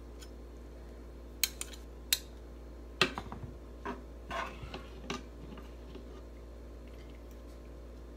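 Metal spoon and plastic serving spoon clinking and scraping against a pan and a ceramic bowl while noodles are served: a few sharp clicks, a louder knock about three seconds in, then a run of softer clinks and scrapes. A steady low hum runs underneath.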